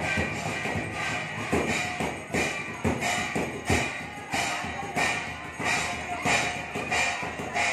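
Festive percussion: a drum struck in a steady beat, about three strokes every two seconds, with metallic jingling and ringing over it.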